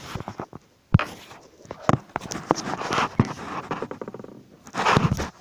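Handling noise from a phone held close to the face: fingers rubbing and knocking on the phone near its microphone, with a sharp knock about a second in and rustling bursts in the middle and near the end.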